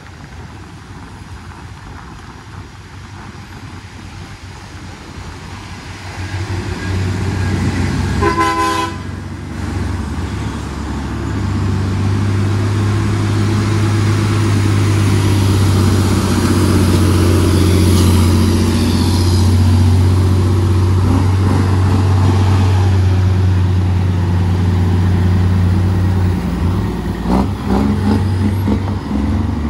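Heavy truck's diesel engine running under load, a steady low drone that grows louder from about six seconds in and stays loud. A short horn toot sounds about eight seconds in.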